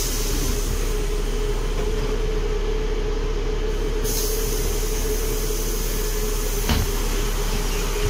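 Articulated city bus standing still, its drive and auxiliary machinery giving a steady drone with a constant mid-pitched hum. A single short knock comes near the end.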